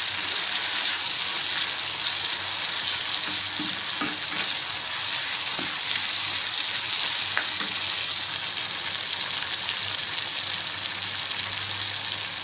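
Onion, tomato and dal mixture sizzling steadily in oil in a kadai while a metal spoon stirs it, with a few light scrapes of the spoon against the pan.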